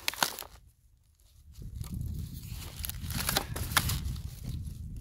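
Cardboard and plastic packaging rustling and crinkling as a well pump is unpacked by hand. Sharp crackles come just after the start and again about three seconds in, over a low rumble that starts about a second and a half in.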